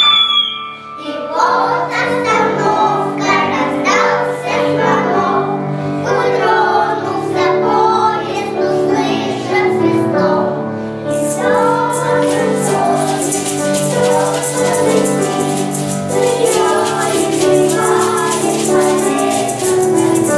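Children's choir singing a song in unison with piano accompaniment. About halfway through, a fast, even, high rattling rhythm joins the singing.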